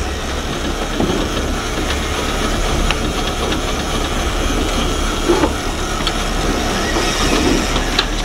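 Boat engine running at low speed in gear, a steady low hum under a constant rushing noise of wind and water, with a few light clicks.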